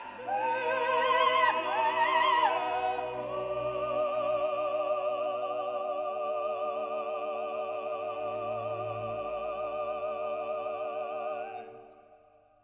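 Operatic singing with orchestra: a few sung phrases with wide vibrato, then a long held closing chord that fades out about twelve seconds in.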